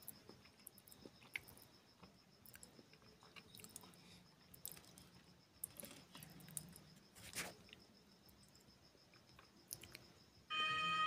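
Quiet room with a faint, steady, high-pitched pulsing trill and scattered light clicks and taps. Music starts suddenly near the end.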